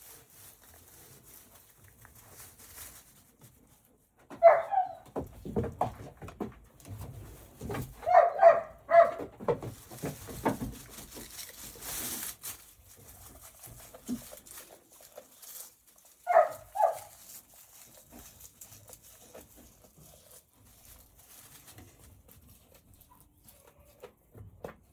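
A dog barking in short calls: one about four seconds in, a quick run of several around eight to nine seconds, and two more near sixteen seconds. Low knocks and rustling come in between.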